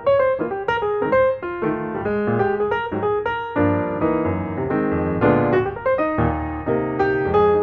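Background piano music: a quick run of single notes, turning to fuller held chords about halfway through.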